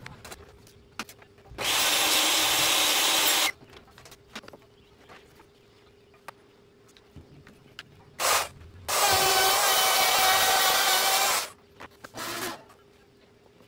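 A power tool runs in two bursts of about two seconds each, starting and stopping abruptly, with brief blips just before and after the second burst. Faint knocks and clicks come between the bursts.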